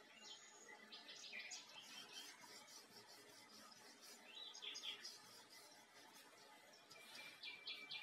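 Faint birdsong: short, high chirping phrases, one about a second in, another near the middle, and a quick run of repeated notes near the end, over a soft steady background hiss.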